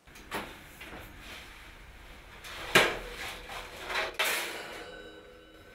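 A wall oven door is pulled open and a metal baking pan is slid out off the rack, with a sharp clank of metal about three seconds in and two more knocks about a second later.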